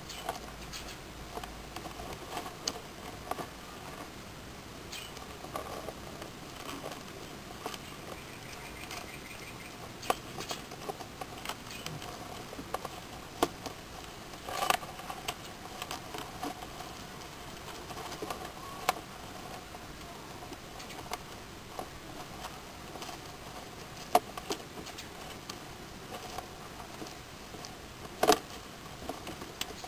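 Land hermit crabs scuffling: irregular clicks and taps of shells and claws knocking together and legs scrabbling on gravel, a few sharper knocks standing out, over a faint steady hiss.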